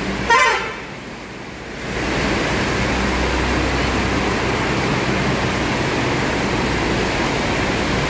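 A short, high horn blast from a Mercedes-Benz coach just after the start, then the coach's diesel engine rumbling steadily as it pulls away over a wet road, with the hiss of rain and wet tyres.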